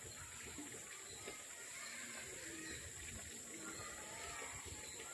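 Faint outdoor ambience: a low, uneven rumble with scattered faint sounds and no clear single source.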